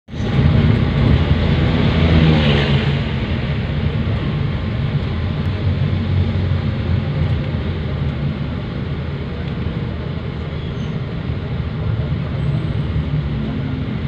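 Engine and road noise of a moving vehicle, heard from inside it: a steady low drone with the hiss of traffic, louder for the first three seconds.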